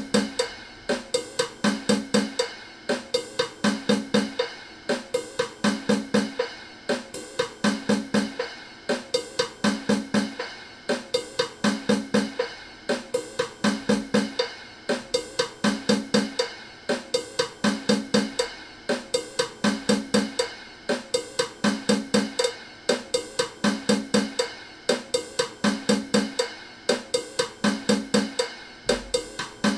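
Music: a fast, steady drum-and-percussion loop of snare and hi-hat hits, with a short low pitched figure repeating about once a second.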